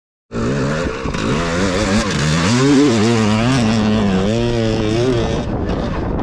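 Two-stroke dirt bike engine revving, its pitch rising and falling again and again with the throttle, over a steady rushing noise. The engine note fades near the end while the rushing goes on.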